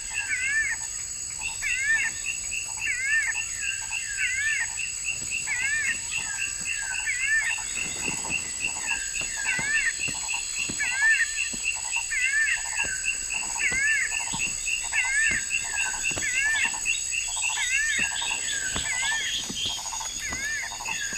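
Tropical forest ambience: a chorus of short chirping animal calls, repeated one to two times a second by more than one caller, over a steady fast insect trill and high buzzing.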